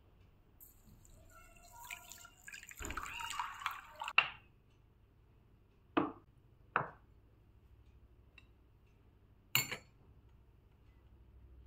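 Water poured from a small glass jug into a glass bowl of fenugreek seeds for about three and a half seconds, ending in a sharp glass clink. Two short knocks follow a couple of seconds later, and a single sharp click near the end.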